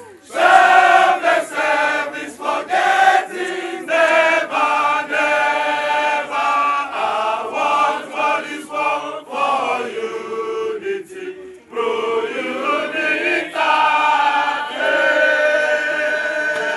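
A group of men and women singing together in chant-like phrases, with a brief thinning of the voices about ten seconds in. The singing cuts off abruptly at the end.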